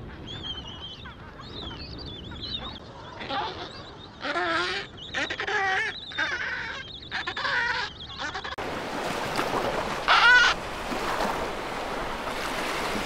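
Penguins calling in a colony: overlapping warbling calls with wavering pitch. About two-thirds of the way through, a steady rushing noise joins them, followed by one louder call.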